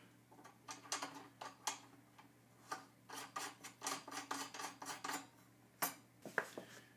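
Faint small metallic clicks and ticks of a stainless steel crush washer being handled and worked onto a rifle barrel's threaded muzzle. There is a quick run of clicks in the middle and a couple of sharper clicks near the end.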